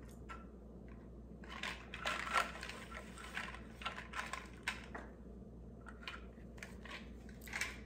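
A straw stirring iced coffee in a clear plastic cold cup: quick, irregular clicks and rattles that come in two clusters and again near the end.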